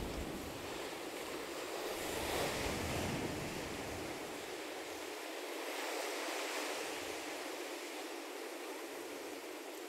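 Sea surf breaking and washing against a rocky shore in slow swells, with wind rumbling on the microphone for the first few seconds.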